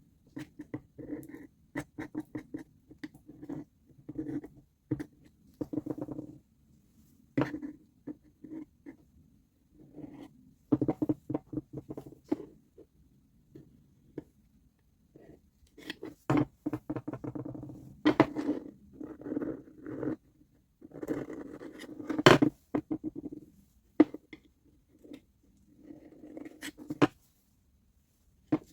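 Hand work on a disassembled reciprocating saw's parts: irregular scratching and scraping strokes in short bursts, with scattered sharp clicks.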